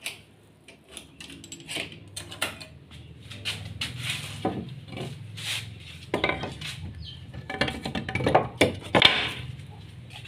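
Clattering and metallic clinking of hard household objects being handled, an irregular run of sharp knocks that gets busier and louder about eight to nine seconds in.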